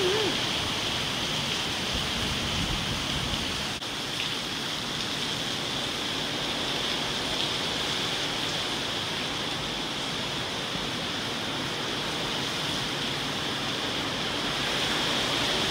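Steady, unbroken rush of heavy rain and hurricane wind through the trees in a hurricane's eyewall, with a brief faint tick about four seconds in.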